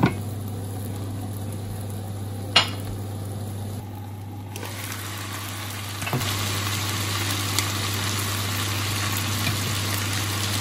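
Chicken pieces sizzling in oil and spice paste in an enamelled cast-iron pot. A glass lid clanks onto the pot at the start, with a sharp knock about two and a half seconds in. The sizzle is muffled while the pot is covered and comes back louder from about six seconds in, once the pot is open. A steady low hum runs underneath.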